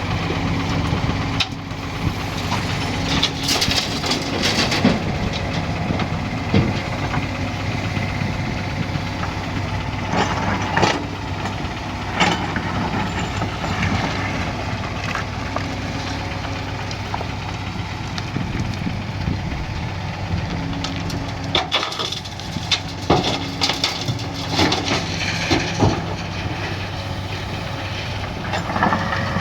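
Excavator's diesel engine running steadily, with several bursts of crunching and scraping as the bucket digs and loads material into a dump truck: a few seconds in, again about ten seconds in, and a longer cluster in the last third.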